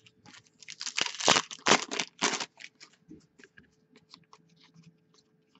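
Foil wrapper of a hockey card pack torn open and crinkled, in a cluster of loud rustling bursts in the first two and a half seconds, followed by light clicks and rustles of cards being handled.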